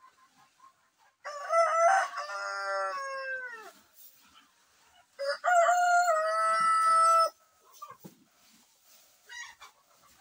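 A rooster crowing twice: one crow starting just after the first second and a second about four seconds later, each about two seconds long, the first trailing off downward at its end.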